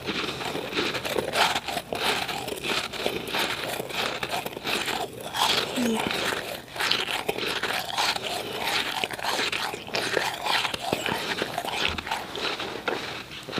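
Powdery refrozen ice being chewed close to the microphone: a continuous run of rapid, small, crisp crunches.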